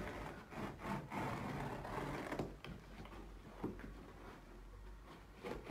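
Carpet being cut into strips with a sharp blade drawn along a marked line: a scratchy rasping as it slices through the backing, louder in the first half and fainter after.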